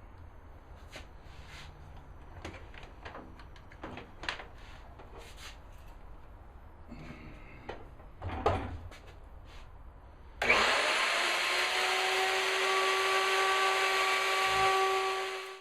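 Light clicks and knocks of wood and tools being handled, with one louder knock about eight seconds in. Then an electric power tool's motor spins up and runs steadily at full speed for about five seconds.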